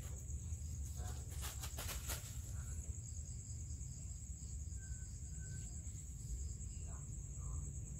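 Crickets trilling steadily in a high, pulsing tone over a low steady rumble, with a few short rustles about a second and a half in.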